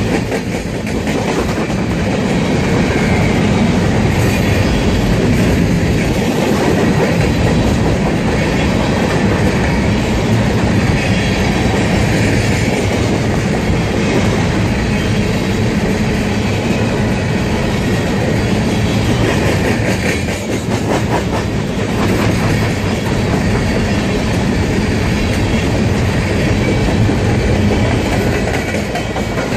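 Covered hopper cars of a BNSF freight train rolling past close by: steel wheels running over the rails in a steady, loud rumble and clatter.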